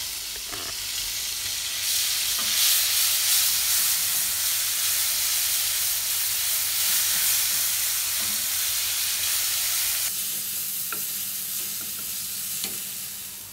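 Ground garlic and shallot paste sizzling in hot melted margarine in a nonstick frying pan while it is stirred with a wooden spatula. The sizzle is loudest through the middle and dies down over the last few seconds, with a couple of light taps near the end.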